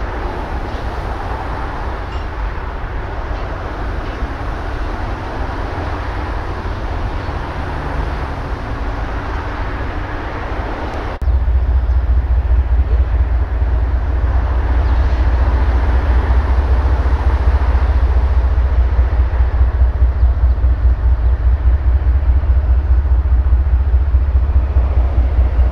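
Diesel locomotive engines running in a rail yard, a steady low rumble. About 11 seconds in the sound cuts abruptly to a louder, deeper, evenly pulsing engine throb.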